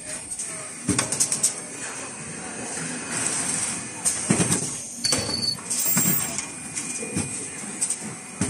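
Automatic N95 cup-mask production line running: irregular mechanical clacks and knocks from its conveyor and pneumatic stations over a steady high hiss, with a brief high-pitched tone about five seconds in.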